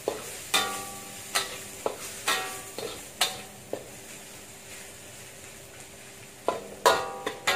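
Metal spatula clanking and scraping against a stainless-steel wok during stir-frying. Each clank rings briefly over a faint sizzle of oil. The clanks come about once a second, pause in the middle, then bunch together near the end.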